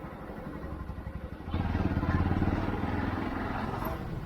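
Bajaj Pulsar NS200 single-cylinder motorcycle engine running on the move, quieter with a fast pulsing at first, then louder and steadier from about a second and a half in.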